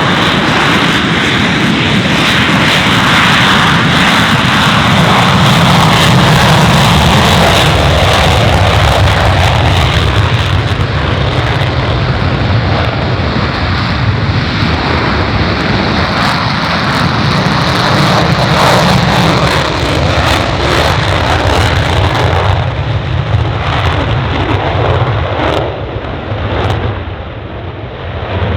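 Panavia Tornado's twin RB199 jet engines at take-off power: a loud, deep rumble with ragged crackling, like an earthquake, passing by and fading in the last couple of seconds.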